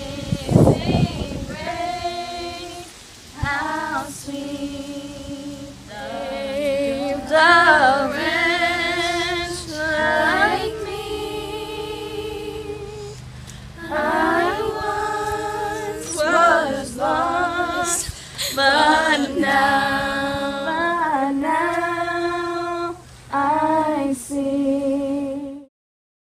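A woman's voice singing a slow melody in long held notes with vibrato, phrase after phrase with short breaths between, largely unaccompanied. The singing cuts off abruptly near the end.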